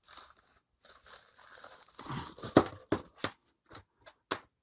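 A mail package being torn open, its packaging crinkling and rustling. Around two seconds in come a run of sharper, louder rustles and snaps, the loudest about two and a half seconds in.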